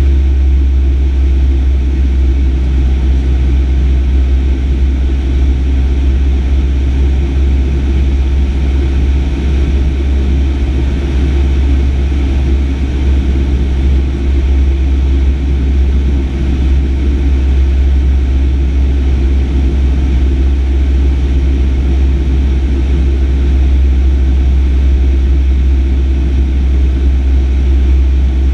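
Light aircraft's piston engine and propeller running steadily in flight, heard loud inside the cockpit as a constant low drone.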